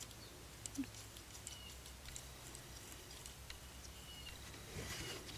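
Faint, scattered light clicks and rustles of yarn being e-wrapped around the pegs of a round wooden knitting loom, over a low steady hum.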